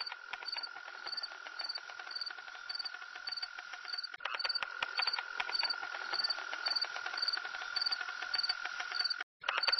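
Chirping insects such as crickets: a steady high trill with regular chirps about twice a second over fast ticking. It gets louder about four seconds in and breaks off for a moment near the end.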